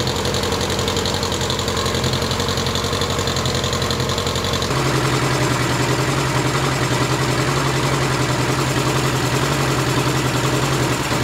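Suzuki GS1000 air-cooled inline-four motorcycle engine idling steadily on freshly rebuilt carburetors that are still being tuned. It is heard closer from about halfway through.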